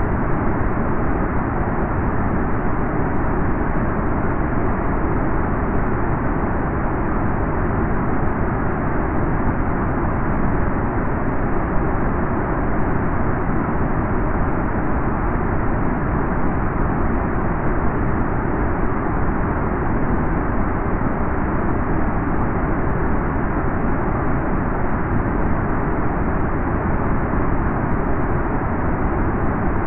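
Aircraft cabin interior ambience: a steady, unchanging, muffled rushing noise with no distinct tones or events.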